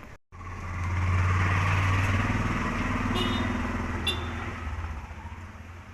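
A vehicle engine running, swelling up over the first second, holding steady, then slowly fading away, with two brief high squeaks near the middle.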